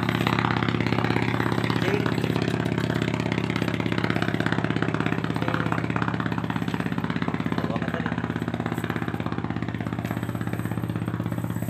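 Small engine idling steadily, with an even, fast low pulse.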